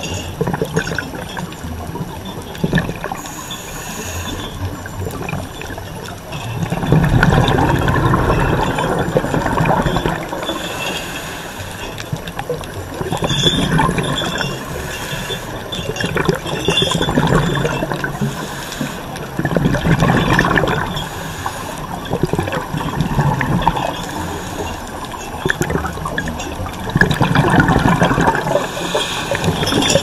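Underwater water noise with bubbling that swells about every three seconds.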